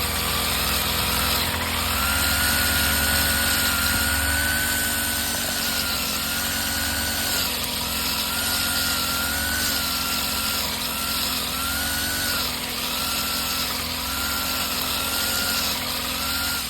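Craftsman 29cc four-cycle string trimmer engine running at high speed, its pitch dipping and recovering again and again as the line cuts into heavy grass.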